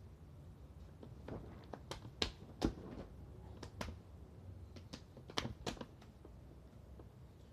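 Pieces of marinated meat being pressed and slapped onto a trompo's vertical spit: irregular short wet slaps and taps, the loudest a little past two seconds in and again a little past five seconds.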